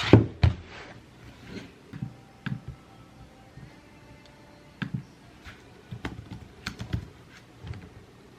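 Irregular clicks and taps of typing on a computer keyboard, with a few heavier knocks in the first half second.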